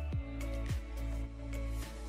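Background music with a steady kick-drum beat over a bass line and held chords.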